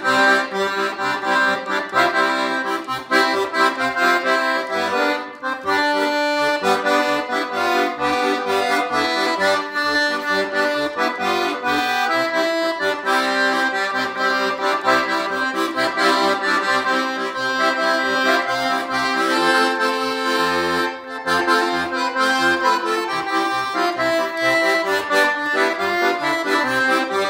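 Titano piano accordion playing a simple improvised tune: a right-hand melody on the keyboard over left-hand Stradella bass and chord buttons in C, G and F major, the bass notes falling on a steady beat.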